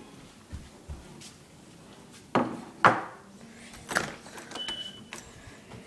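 A glass-paned door being unlatched and opened: two sharp clunks of the handle and latch close together, a further knock about a second later, then a brief high-pitched squeak.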